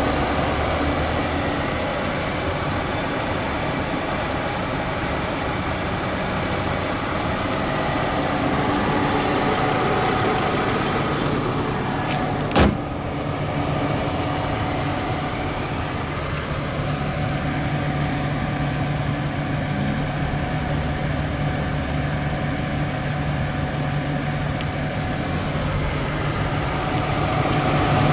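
BMW E46 320i's 2.0-litre 24-valve inline-six idling steadily. About twelve and a half seconds in, the bonnet is shut with one sharp bang, and after that the engine sounds more muffled.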